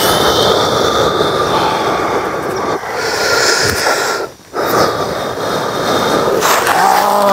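A loud, steady rushing hiss that drops out briefly about four and a half seconds in, then carries on. A man's voice comes in near the end.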